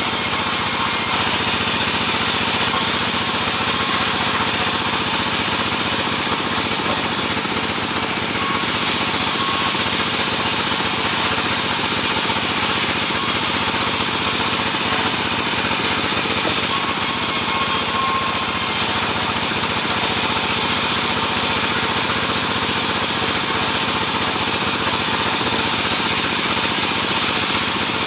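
Sawmill running steadily while sawing sengon wood: a loud, continuous machine noise that holds without a break.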